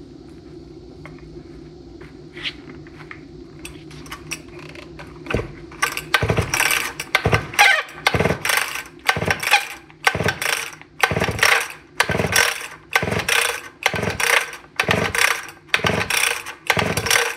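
Sachs Dolmar 133 Super two-stroke chainsaw engine cranked over by repeated pulls on its recoil starter rope, with a compression gauge screwed into the spark plug hole for a compression test. A few light clicks at first, then from about six seconds in a steady run of pulls, a little over one a second, each a rasping whirr as the engine turns against compression.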